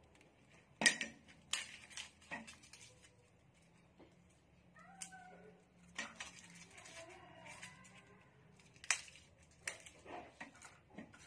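Kitchen knife knocking on a cutting board in irregular single strikes while ginger is sliced and garlic cloves are cut; the loudest hits come about a second in and near the end. A few short wavering calls sound in between.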